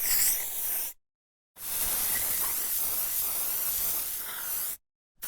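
Aerosol spray can hissing: a burst that cuts off about a second in, then after a short pause a longer, steady spray of about three seconds.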